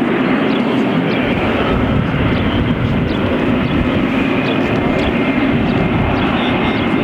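Airliner engines running loud and steady, with a faint high whine.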